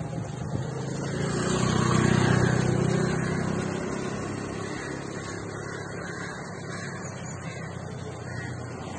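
Motorbike engine running, growing louder to a peak about two seconds in and then slowly fading, as it passes along the road.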